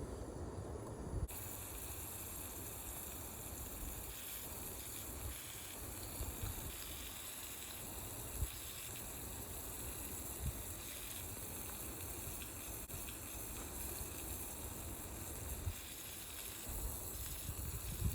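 Small stream running: a steady rush of flowing water, with a few soft knocks.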